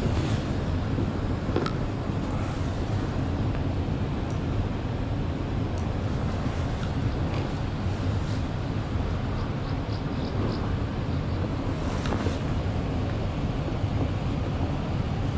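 Steady rush of turbulent current below a dam, mixed with wind noise on the microphone, with a few faint clicks.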